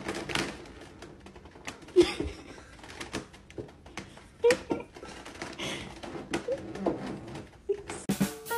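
Irregular light clicks and crackles of a clear plastic cupcake container shifting under a cat as it licks and eats the frosting, with a few short vocal sounds, the loudest about two seconds in.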